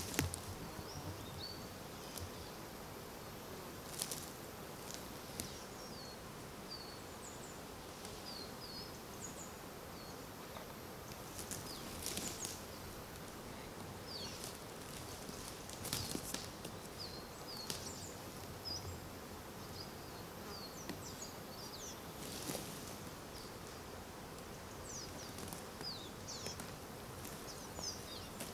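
Forest ambience: a steady hum of insects with short high bird chirps scattered throughout. A few sharp knocks and rustles come from gear being handled.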